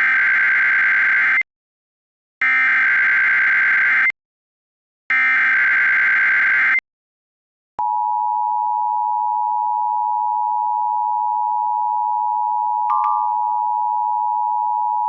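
Emergency Alert System broadcast: three identical bursts of the digital SAME header, a warbling two-pitch data screech each about a second and a half long with short gaps between. About eight seconds in comes the steady two-tone attention signal, which holds on at one level.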